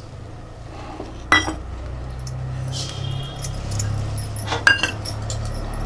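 Metal clinks and scraping of a ladle against an iron kadhai as poppy seeds are put in to roast: one ringing clink about a second in and two more near the end, over a low steady hum.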